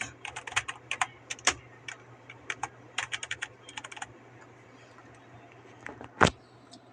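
Keys of a Wolf Totem V5 gaming keyboard being typed on: quick, irregular runs of key clicks for about four seconds, then a few scattered keystrokes and one louder key hit near the end.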